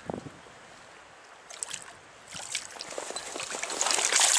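Water splashing and sloshing with scattered clicks. It builds to its loudest near the end.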